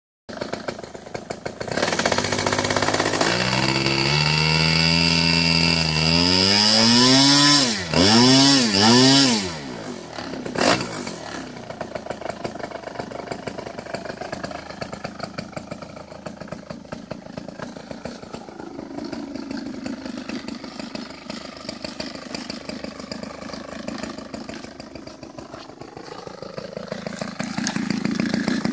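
OS .55AX two-stroke glow engine on an RC airplane, swinging a 13x6 propeller. It runs steadily, speeds up, and then is revved up and down three times in quick succession. It then goes quieter with slow rises and falls in pitch, and grows louder again near the end.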